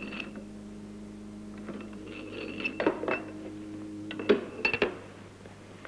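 Linear induction motor's row of AC electromagnets humming, the hum shifting higher about two seconds in. Over it come sharp metallic clinks, a few around the middle and more near the end, from the aluminium slab and the metal track.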